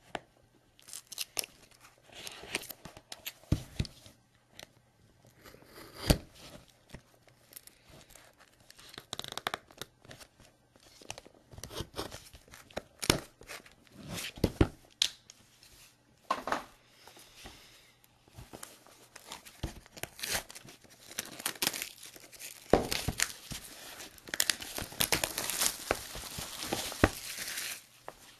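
A sealed cardboard trading-card box being opened: its seal sticker cut and torn, and the paperboard lid worked loose. Irregular scrapes, ticks and tearing, with a denser stretch of continuous tearing and rubbing in the last five seconds or so.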